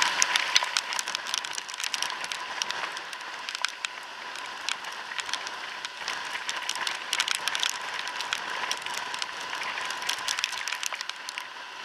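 Raindrops striking the helmet and helmet-mounted camera, a dense run of irregular sharp ticks over a steady hiss, with a thin steady whine underneath.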